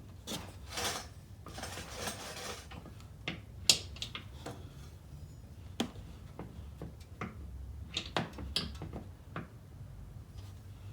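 Handling of QuickJack lift equipment and jacking pucks under a car: scattered light clicks and knocks, with two brief scrapes in the first few seconds and a sharp knock nearly four seconds in.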